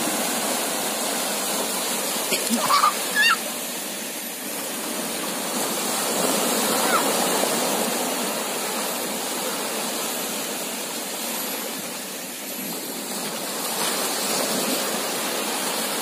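Small waves breaking and washing over a shallow sandy shore: a steady rushing of surf that swells and eases. Children give a few short cries about three seconds in.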